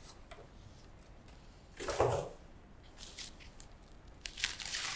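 Unpacking noise: a styrofoam packing piece is lifted off a monitor, with one brief rub about two seconds in, then the plastic protective bag rustles near the end as it is pulled off the screen.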